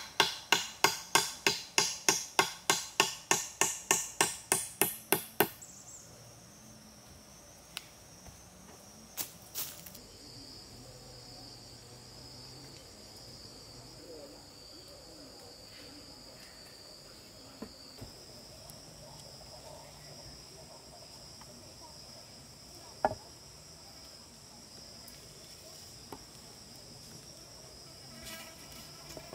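A quick, even series of about twenty hammering blows on wood, roughly three or four a second, stopping about five seconds in. A steady high insect drone follows, with a few scattered single knocks.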